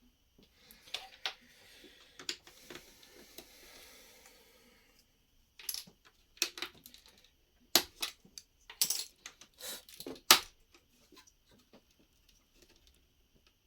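Plastic Lego pieces clicking and clattering as loose bricks are handled and fitted back onto a model: a few sharp clicks over a soft rustle, then a denser run of sharp clicks in the second half, the loudest near the end.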